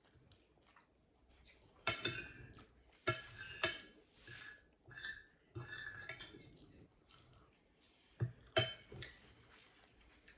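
Metal fork clinking and scraping on a ceramic plate while eating, with several sharp clinks: around two seconds in, twice more a little after three seconds, and twice near eight and a half seconds.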